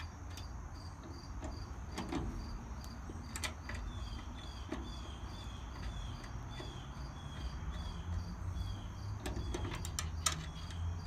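Insects chirping in an even rhythm, about two chirps a second, over a low steady rumble, with a few light metallic clicks as a caster wheel and its screws are handled.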